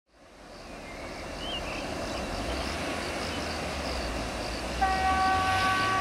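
A low rumble fades in, then about five seconds in the air horn of a BR232 'Ludmilla' diesel locomotive sounds one steady blast that carries on past the end.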